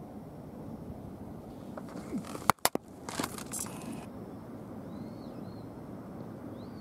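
Steady open-air background noise, broken about two and a half seconds in by two sharp clicks in quick succession and a brief scuffing rustle. A small bird chirps twice, once in the middle and once near the end.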